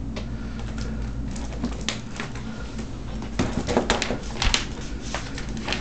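Scattered light clicks and scrapes from a Bernese mountain dog's plastic medical cone and paws working at a dental treat on a wooden floor, with a quick run of clicks about three and a half seconds in, over a steady low hum.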